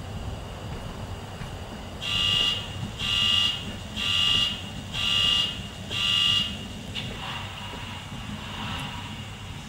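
Sound decoder in an OO-scale Bachmann Class 66 model locomotive playing a diesel idling through its small speaker. About two seconds in come five high-pitched alarm beeps, about one a second and each about half a second long, the loudest sound. Softer, fainter tones follow near the end.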